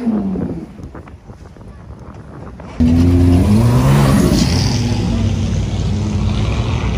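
A car engine's tone falls away at the start, followed by a quieter stretch with faint clicks. About three seconds in, a Porsche 911 GT3's flat-six comes in suddenly and loud, revving up in rising glides as it pulls past, then settles into a steady engine drone.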